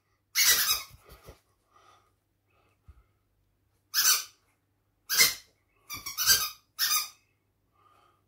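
A person making squeaky squirrel chattering noises for a squirrel hand puppet: several short bursts with gaps between them.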